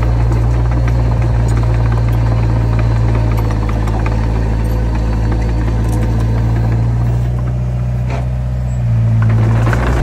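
Heavy diesel engine of earthmoving machinery running steadily under load. It eases off briefly about three quarters of the way through, then comes back up louder near the end.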